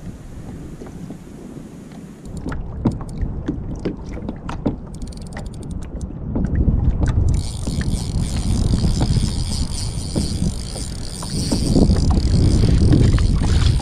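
Wind rumbling on the microphone and water sloshing around a kayak, with scattered light knocks and clicks, most between about two and seven seconds in. It gets louder about six seconds in and again near the end.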